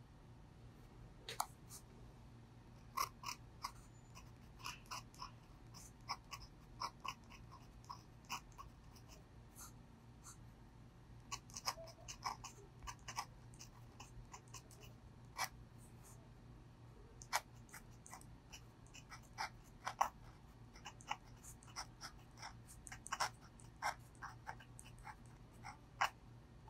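Brause Steno dip pen nib scratching across textured paper while writing Korean by hand: an irregular string of short, crisp scratches and ticks, one for each pen stroke, over a faint steady low hum.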